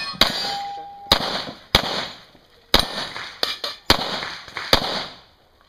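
Pistol shots fired at steel targets, about seven at uneven intervals, with a steel plate ringing briefly after the first hit.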